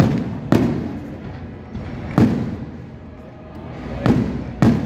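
Aerial firework shells bursting: five sharp bangs, each trailing off in an echoing rumble. They come in pairs near the start and near the end, with a single bang in the middle.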